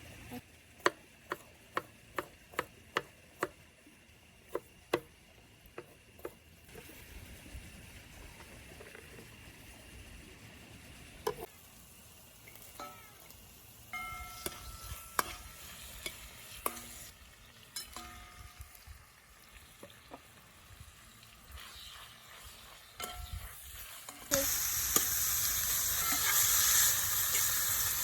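A run of sharp knocks, then scattered clinks of utensils on metal. About 24 seconds in, a loud sizzle starts suddenly as food goes into hot oil in a pan for stir-frying.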